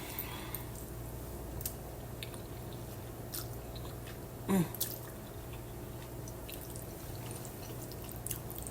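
A person chewing a mouthful of spaghetti, with small wet mouth clicks, and a short voiced sound falling in pitch about four and a half seconds in.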